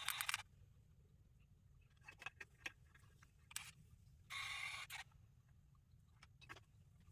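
Short hisses of an aerosol heat-protectant hairspray. One brief burst comes right at the start and a longer one about four seconds in, with light clicks and handling sounds between them.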